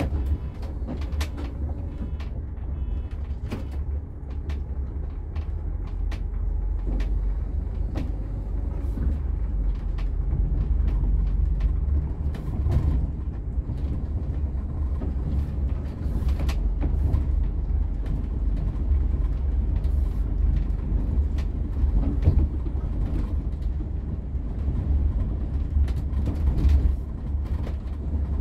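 Setra S 416 UL Business bus driving along, heard from inside the cabin near the front: a steady low engine and road drone that grows somewhat louder about a third of the way in as the bus gathers speed, with scattered short clicks throughout.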